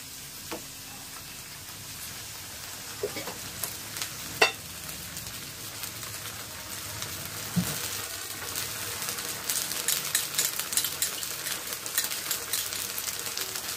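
Butter, garlic and onion sizzling in a frying pan as ketchup is poured in and stirred with a wooden spatula. A sharp knock comes about four seconds in, and the sizzling crackles more densely in the second half.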